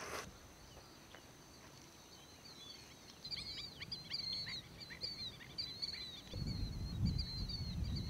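Many birds calling together, a dense run of short, high chirps that starts about three seconds in. Wind rumbles on the microphone from a little after six seconds.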